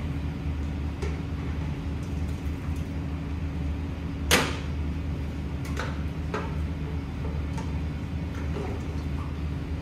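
Large catering tin of tomato sauce tipped and knocked against an aluminium stockpot of browned mince, with one sharp knock about four seconds in and a few lighter knocks after. A steady hum from the kitchen's extractor hood runs underneath.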